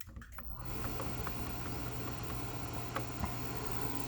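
Beckett AFG oil burner switching on with a click and its motor and blower spinning up within about half a second, then running with a steady hiss and low hum: the pre-purge that runs before the delayed oil valve opens.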